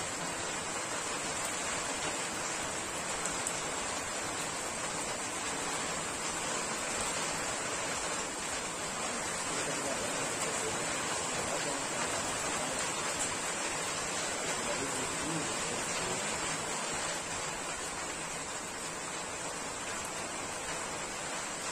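Heavy rain falling steadily, a constant hiss of downpour with no single drops standing out.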